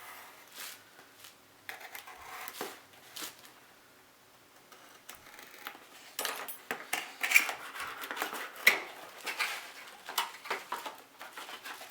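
Hands opening model-kit packaging: irregular rustling, crinkling and clicking of packaging and parts, sparse at first and busier and louder from about halfway through.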